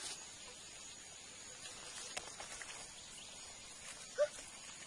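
Faint outdoor ambience: a steady high-pitched insect drone, with a few light clicks and rustles from movement on dry leaf litter and a brief, short rising call about four seconds in.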